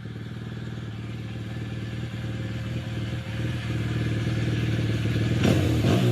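Motorcycle engine running steadily and slowly getting louder, then revved in quick rising bursts near the end.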